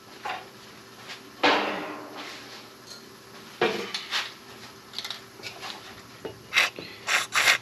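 Scattered metal clinks and knocks of hand tools, a tap and tap handle, being worked while a hole in a steel plate is hand-threaded. There are a few separate clinks, then a quick run of them near the end.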